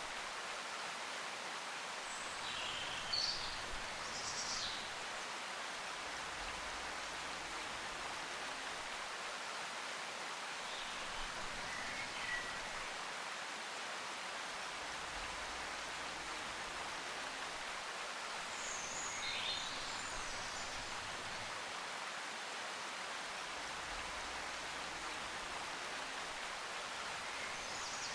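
Steady background hiss with a few brief, faint high chirps now and then.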